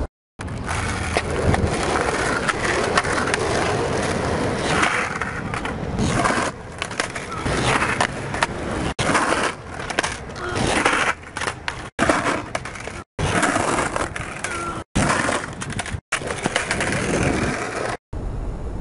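Skateboard on asphalt, its wheels rolling and the board scraping and sliding through primo slide attempts, with knocks of the deck. The sound is cut into short stretches, with sudden brief drops to silence several times near the end.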